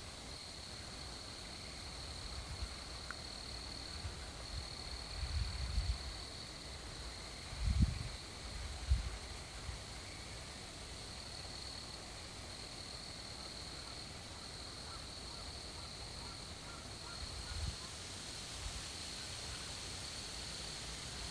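Night insect chorus, a steady high-pitched trill with brief gaps, with wind gusting on the microphone a few times, loudest about five to nine seconds in.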